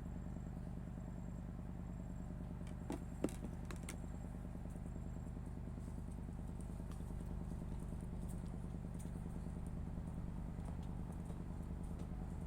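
A small engine running steadily at an even speed, with two short knocks about three seconds in.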